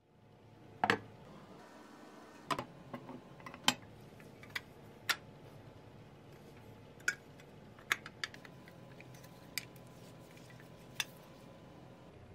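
Sharp, irregular clicks and taps of painted pressed-steel toy truck parts being handled and fitted together, about a dozen over a faint steady hum.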